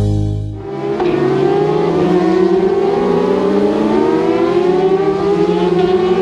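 Racing motorcycles at the Isle of Man TT running flat out at high revs, the engine note climbing steadily in pitch as they come up the road. The tail of background music fades out in the first second.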